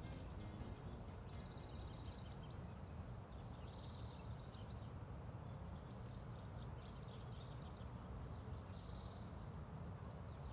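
Small birds chirping and trilling high in several short bouts, over a steady low outdoor rumble.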